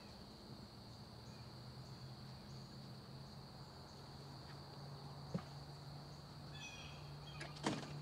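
Quiet outdoor ambience: a steady high-pitched insect-like drone over a low hum, with a single light tap about five seconds in and a sharper knock near the end.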